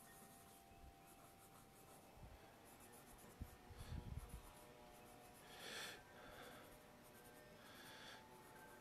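Colored pencil scratching faintly across paper in short sketching strokes, with a louder stroke about six seconds in. A few soft low bumps come around four seconds in.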